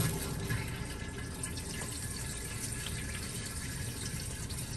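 Water running steadily through a newly installed Dometic 320 RV toilet, turned on to check the supply connection for leaks.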